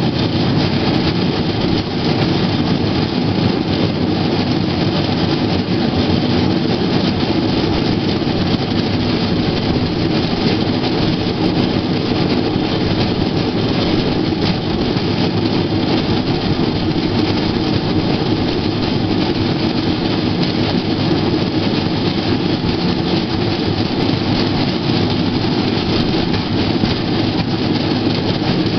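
Steady rolling rumble of a rail bike's steel wheels running along the track.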